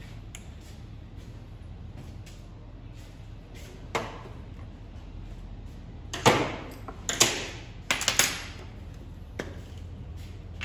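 A few short bursts of WD-40 aerosol spray, the loudest group about two-thirds of the way in. The penetrating oil is being sprayed onto a seized cover screw of a brush cutter to free it.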